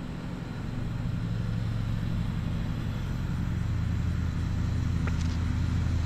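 Onboard-camera sound of an E-flite Valiant RC plane in flight: a steady low drone from its electric motor and propeller mixed with rushing wind, slowly getting louder.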